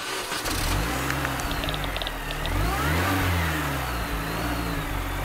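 Car engine running, revving up about halfway through and easing back down.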